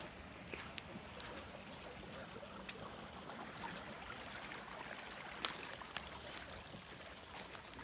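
Rustling of dry grass and brush with scattered twig snaps as someone walks through overgrown undergrowth, over a steady hiss.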